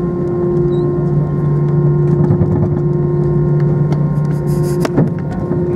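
Steady drone inside an Airbus A320 cockpit, several held tones over a low rumble, with a few light clicks and a sharper tick about five seconds in.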